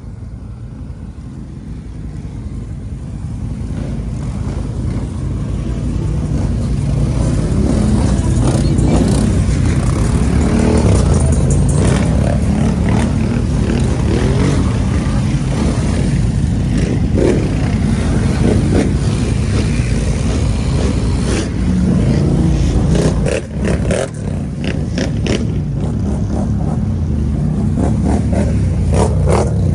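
Several ATV engines, among them a Can-Am Outlander's, running and revving as the four-wheelers ride through the woods, growing louder over the first several seconds. The level drops briefly about 23 seconds in.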